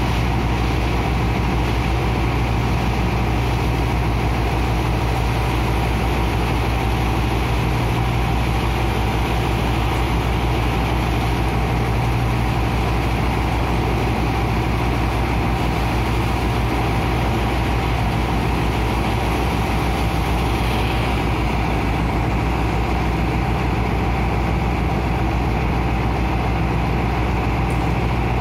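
Steady engine drone of a sand-dredging pump running continuously, with the hiss and splash of water jetting from a hose and churning slurry underneath. A slight brighter hiss comes in a little past two-thirds of the way through.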